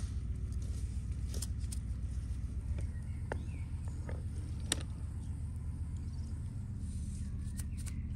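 Steady low engine hum, like a motor idling, with a few light clicks and knocks over it, the sharpest a little before five seconds in.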